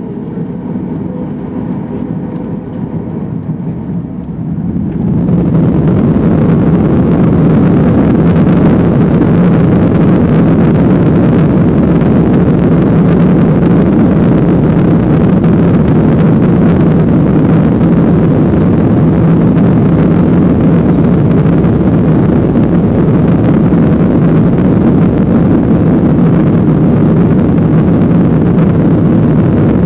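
Jet airliner's engines spooling up to takeoff thrust about five seconds in, then a loud steady roar heard inside the cabin as the plane accelerates down the runway on its takeoff roll.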